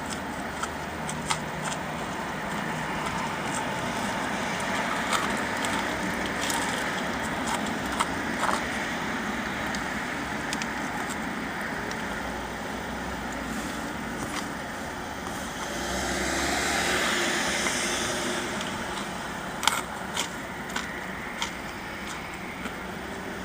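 Steady hum of traffic and car noise with scattered small crackles and clicks; a vehicle swells past about two-thirds of the way through.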